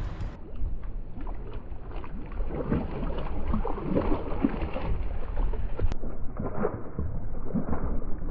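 Hooked bluefish thrashing and splashing at the water's surface beside a kayak, in irregular bursts over a steady wind rumble; the sound is muffled.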